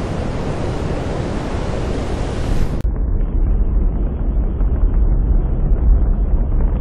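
Space shuttle ascent noise: a steady rushing noise, then a sudden change about three seconds in to a duller, deeper rumble.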